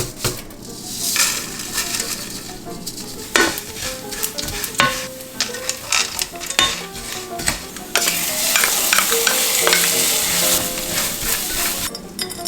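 Food being stir-fried in a pan, a utensil clicking and scraping against it, then a louder sizzle about eight seconds in that lasts a few seconds before dying down.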